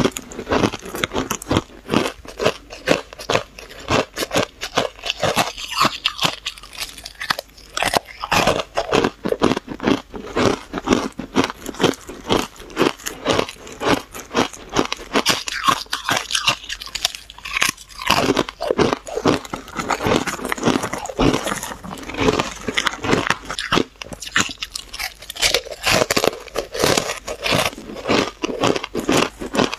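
Powder-dusted refrozen ice chunks crunched and chewed close to a lapel mic: a rapid, crisp run of crunches that goes on without a break.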